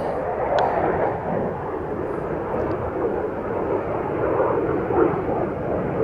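F-16 fighter jet flying over, its jet engine giving a steady, loud roar.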